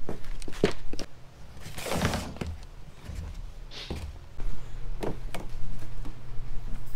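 Plastic hanging-basket pots with wire hangers handled and set down on a greenhouse bench: a few sharp knocks and thunks with brief rustles, over a low steady hum.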